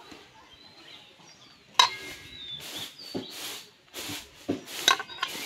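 Hands working through ripe jujubes in a stainless steel bowl, pulling off their stems: a run of short rustling rubs as the fruit is handled, with two sharp clinks of fruit against the steel, about two and five seconds in, the second one the loudest.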